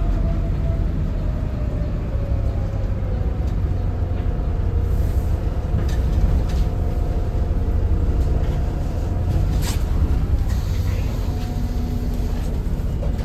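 Volvo B7RLE bus's seven-litre six-cylinder diesel engine running steadily with a low rumble and a faint steady whine, with a few light clicks in the middle.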